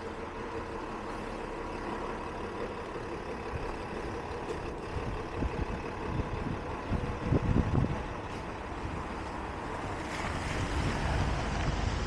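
Downtown street traffic with a heavy vehicle running nearby, a steady rumble of engines and tyres. About seven seconds in, a few low rumbling thumps are the loudest part.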